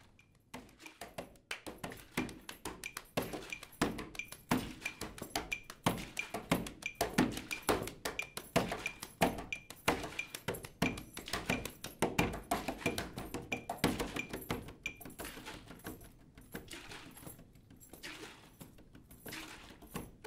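Percussion music: a busy run of knocks and clicks over a small high tick repeating about twice a second, thinning out near the end.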